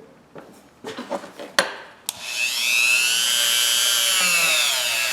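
A few handling clicks and knocks, then about two seconds in a small power tool fitted with a little wire wheel starts up. Its whine climbs in pitch and settles into a steady high running tone.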